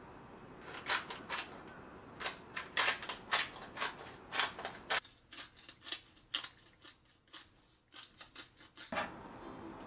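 Salt and pepper grinders being twisted by hand: a long run of quick, irregular crunching clicks that starts about a second in and goes on until near the end.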